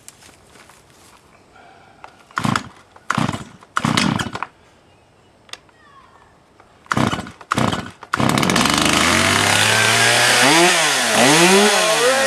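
Stihl MS 250 two-stroke chainsaw cold-started: several short pulls on the starter cord, then about eight seconds in the engine catches and keeps running. Near the end it is revved up and down twice.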